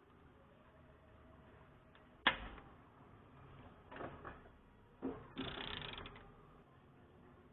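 Half-inch ratchet on an extension working a rusted rear differential drain plug: one sharp metallic knock about two seconds in, then short runs of ratchet clicking, the densest a little after five seconds.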